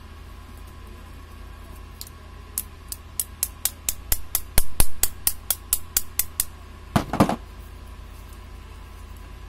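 A quick run of sharp metallic clicks, several a second, from pliers working the metal pins and clips on a heat gun's heating-element mount. About seven seconds in comes a short, louder clatter as the element assembly is worked free.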